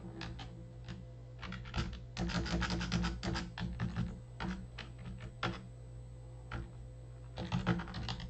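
Typing on a computer keyboard: a quick run of key clicks about two seconds in, scattered single keystrokes, then another run near the end.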